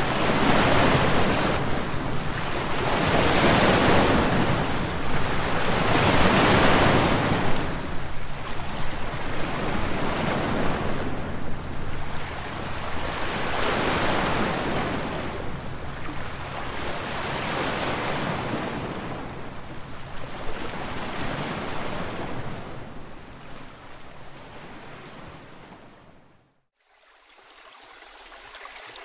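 Sea waves washing in slow surges a few seconds apart, gradually fading out to a moment of silence near the end, followed by a faint steady hiss.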